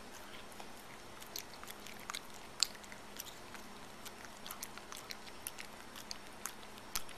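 A small dog licking and smacking at sticky peanut butter: irregular wet mouth clicks and smacks, with one sharper click about two and a half seconds in, over a faint steady hiss.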